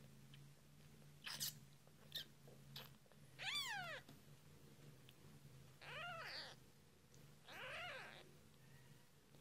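A newborn kitten, a few days old, mewing three times, each a short high cry that rises and falls in pitch, after a few faint clicks.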